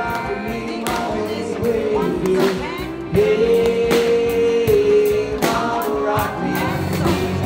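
A live band playing a song, with a singer over drums; the singer holds one long note about three seconds in.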